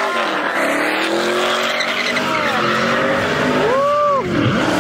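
Pickup truck engine revving up and down while it spins donuts, with steady tire squeal and hiss from the spinning rear tires. A little under four seconds in, the revs climb sharply and drop back.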